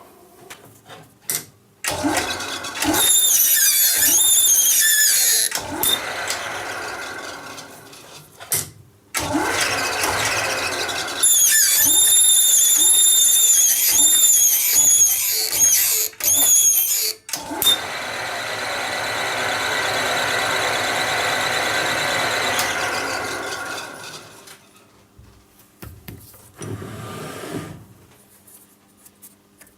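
Metal lathe cutting a small part in several stop-and-start runs. During two of the runs the cutting tool squeals with high, wavering whistles. A longer, smoother cutting run follows about two-thirds of the way in.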